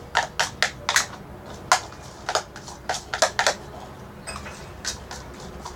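Irregular hard clicks and taps, quick at first and then sparser.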